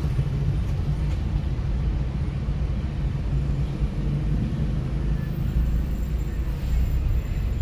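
Steady low rumble of motor-vehicle engines and road noise in heavy traffic, with no distinct events.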